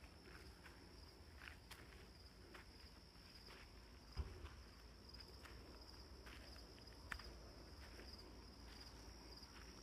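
Faint, steady pulsing chorus of crickets, with soft footsteps on the ground and a dull thump about four seconds in.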